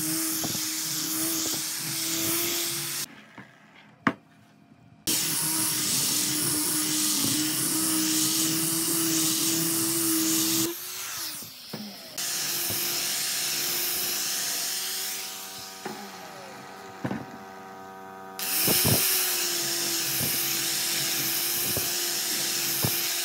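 Electric power tool working wood: a steady whine over a loud hiss, in several clips edited together. The sound drops out abruptly about three seconds in and again near eleven seconds, with a few sharp knocks in the quieter stretches.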